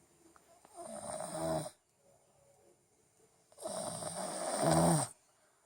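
A child snoring: two snores about three seconds apart, each lasting a little over a second and growing louder toward its end.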